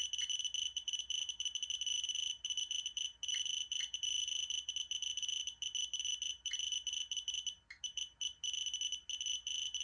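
Radex handheld radiation detector sounding its dose-rate alarm: a high-pitched beeping, chopped into rapid, uneven chirps with a few short breaks, with a few faint clicks. It is signalling that the radiation from the uranium-ore test card is above its 0.30 µSv/h alarm threshold.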